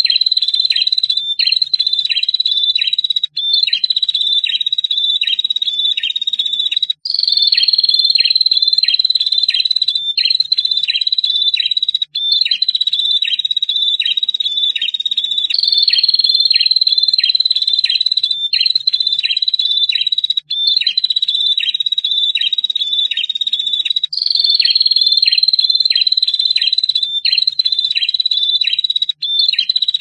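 Prinia (prenjak) song: a loud, continuous high trill with a rapid run of sharp repeated notes, the long 'ngetir' trill. The same stretch of recording repeats as a loop, restarting about every eight seconds with a brief break.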